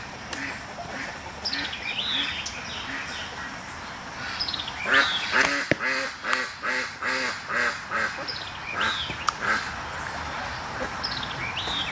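Birds calling: short high calls sliding downward every second or two, and a rapid run of about eight lower calls in the middle.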